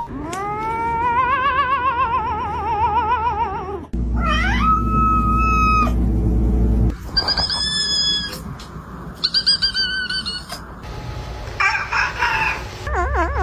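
Domestic cats vocalizing in a string of separate calls: a long yowl that wavers up and down in pitch, then a rising meow, then several shorter high-pitched meows, and a call that wobbles in pitch near the end.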